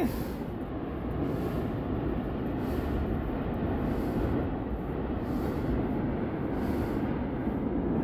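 Steady low rumble of the erupting Cumbre Vieja volcano and its advancing lava flow.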